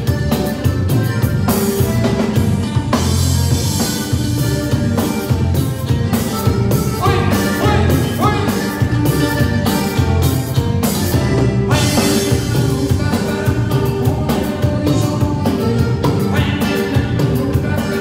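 Cumbia band playing live through the PA: a drum kit keeping a steady beat under bass and other pitched instruments, with some singing.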